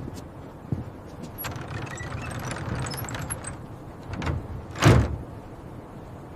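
A door being handled and opened: scraping and light clicks, then a sharp, heavy knock about five seconds in, the loudest sound.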